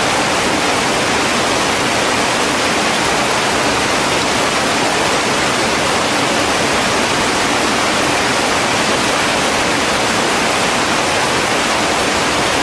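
Muddy floodwater rushing over a rock ledge: a loud, steady noise of water pouring from a creek in flood.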